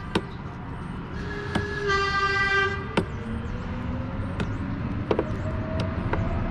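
A horn-like toot, steady in pitch and about a second long, sounds a couple of seconds in. Several sharp clicks come from a compression tester's brass fitting and hose being handled at an outboard's spark-plug hole, over a low background rumble.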